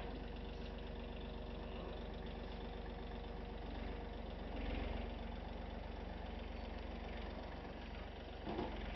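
Small John Deere compact tractor's engine running steadily, slightly louder about five seconds in.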